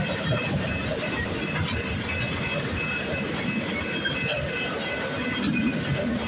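Freight train of flatcars rolling past: a steady rumble and rattle of steel wheels on the rails, with faint high-pitched wheel squeal.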